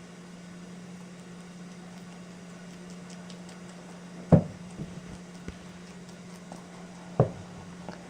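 Rabbits chewing salad: faint, scattered crunchy clicks over a steady low hum. Two sharp thumps stand out, about three seconds apart.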